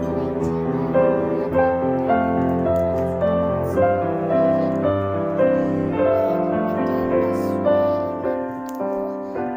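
Background music carried by piano, with steady sustained notes changing every half second or so.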